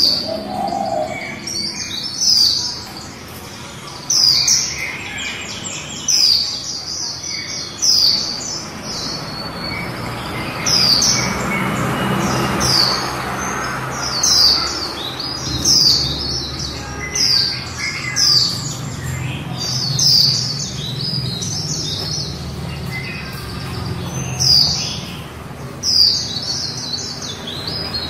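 Female white-eye (vành khuyên) giving the 'líu' call: short, high chirping phrases repeated every second or two. This is the call bird keepers play to stimulate male white-eyes to sing.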